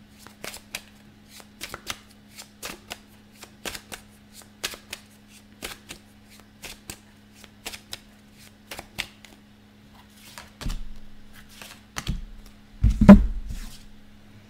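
A deck of tarot cards being shuffled by hand: a run of soft, irregular card flicks about two or three a second. Near the end come a few louder knocks, the loudest about a second and a half before the end.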